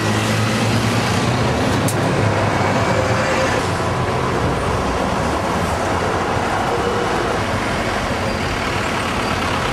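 City road traffic in a concrete underpass: articulated buses and motor scooters passing, a steady noise of engines and tyres. A low engine hum fades out about three seconds in, and there is one short click near two seconds.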